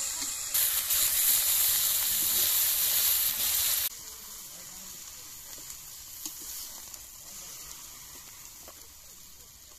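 Boyal fish pieces sizzling loudly as they fry in hot oil in a wok. Just before four seconds in, the sound drops suddenly to a much quieter sizzle that fades away.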